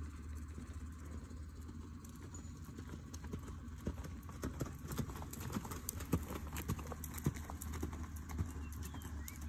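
A horse's hooves striking the dirt of a sand arena as the ridden mare lopes, an uneven run of hoofbeats that grows clearer about two seconds in. A steady low hum runs underneath.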